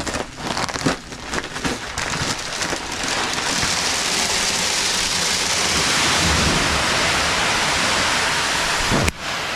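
Rustling and clicks as a super sack of calf starter is untied, then from about three seconds in a steady rushing hiss of the pelleted feed pouring out of the bulk bag into the tote, flowing freely because it is well broken up. A short break comes just after nine seconds.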